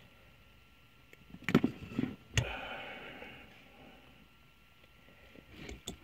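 Wire stripper working thin automotive wire: a few sharp clicks about a second and a half to two and a half seconds in, then a brief scraping rustle that fades, and one more small click near the end.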